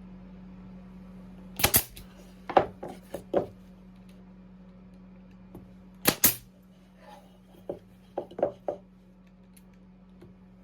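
A brad nailer fires into wooden boards: two sharp doubled shots about four and a half seconds apart, the loudest sounds here. Between them come lighter wooden knocks as the boards are handled and set in place.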